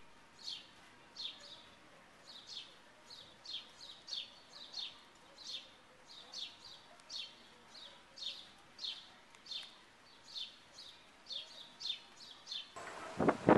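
A small bird chirping over and over, about two short falling chirps a second. Near the end it gives way suddenly to a louder rush of noise.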